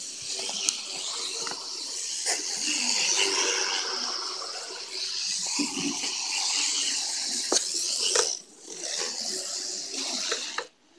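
N gauge model train running on its track: a steady hissing whir with scattered clicks, dropping out briefly about eight seconds in.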